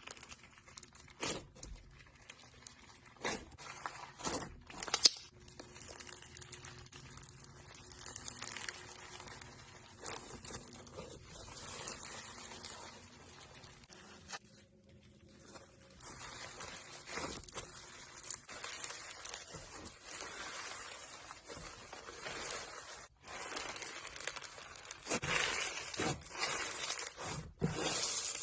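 Slime being worked by hand, making crackling, crinkling, crunchy noises with sharp clicks and pops now and then and a short pause about halfway through.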